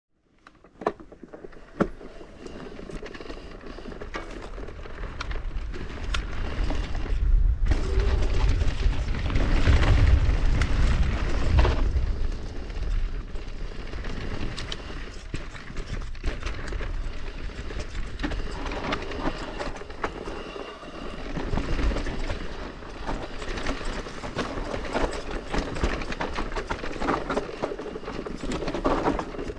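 Santa Cruz Bullit e-mountain bike descending a dirt forest trail: tyres rolling over dirt and roots with steady rattling and clicking from the bike. Two sharp clicks at the start as it sets off. A low rumble swells and is loudest around ten seconds in.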